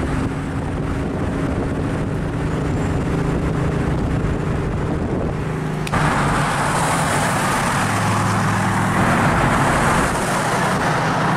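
Cars cruising on a highway: a steady engine drone over road noise. About six seconds in it cuts abruptly to louder wind and road rush, as from inside a moving car, with the engine still droning underneath.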